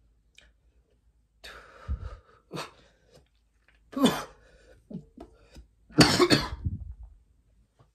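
A man coughing in a run of short fits, the loudest one about six seconds in. It is the cough that follows a long hit from a THC vape.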